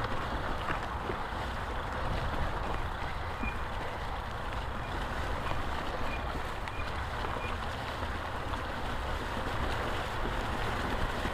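A steady rushing noise with a low rumble underneath, and a few faint, brief high-pitched chirps.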